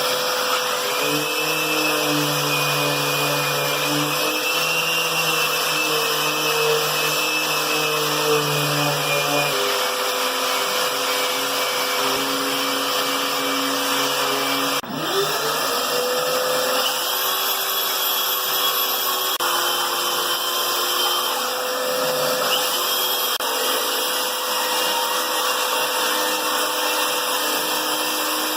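Handheld electric power tool running as it cleans up the surface of a rough cherry slab, its motor pitch shifting under load. About halfway through it cuts out for a moment and spins straight back up.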